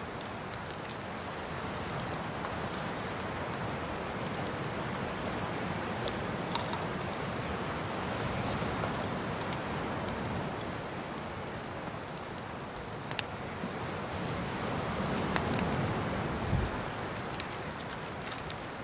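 Food cooking over a fire-pit grill: a steady sizzling hiss with scattered sharp crackles and pops.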